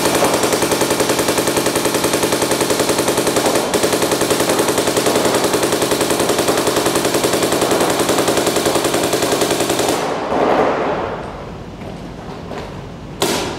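MacDev Clone 5 electronic paintball marker firing a long string of rapid, evenly spaced shots, emptying the last pod of paint as the air tank runs down; the firing stops about ten seconds in, and a sharp knock follows near the end.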